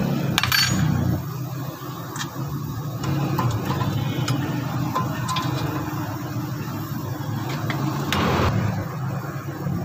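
Rusty front brake caliper and pads being worked off a disc rotor: a few light metal clinks, then a longer scrape about eight seconds in as the caliper comes free. A steady low machine hum runs underneath.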